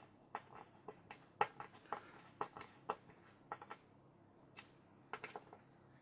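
Faint, irregular light clicks and ticks of a small screwdriver turning a CPU cooler's mounting screw through the back of a motherboard.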